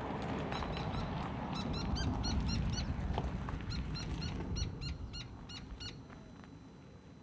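A bird calling in a quick series of short, repeated notes, about three a second, until about five seconds in, over a low rumble that fades toward the end.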